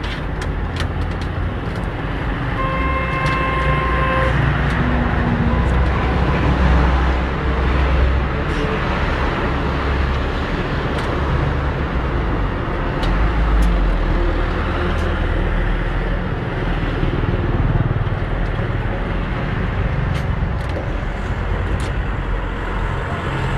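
Petrol engine of a walk-behind concrete saw running steadily. A vehicle horn toots briefly about three seconds in.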